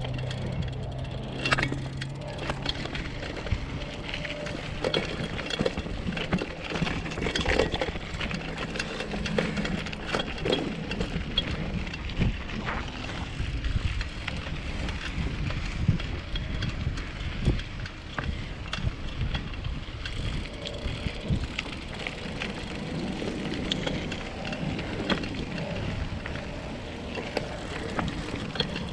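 Bicycle being ridden over a rough dirt trail: a steady rumble of tyres on the ground with frequent rattles and knocks from the bike.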